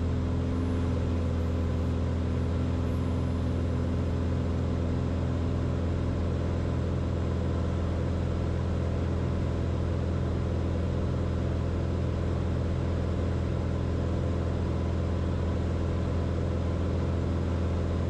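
Cirrus SR20 G6's piston engine and propeller droning steadily, heard inside the cabin: a low, even hum that holds the same pitch and level throughout.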